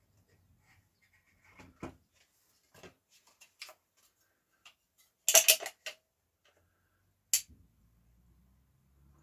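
Light knocks and clicks from a pine strip and tools being handled and set down on a wooden panel. A quick rattling cluster of knocks comes about five seconds in, and a single sharp click about two seconds later.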